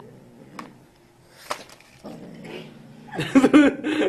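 Kitten giving a loud, wavering cry about three seconds in, after a few faint clicks and rustles.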